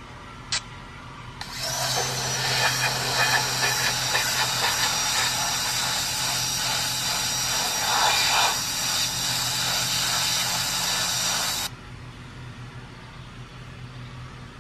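Audio of a short video clip playing on a phone: a steady hiss-like noise that starts suddenly about a second and a half in and cuts off abruptly about ten seconds later. A single click comes just before it.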